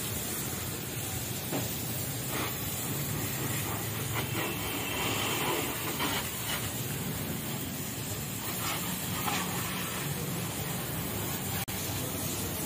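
Steady hiss of a pressurised water jet from a hose nozzle spraying a car's wheels and underbody, with a low steady hum underneath.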